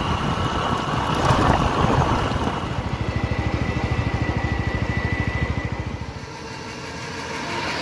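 Small motor vehicle engine running on the move, with an even pulsing beat that fades out about six seconds in.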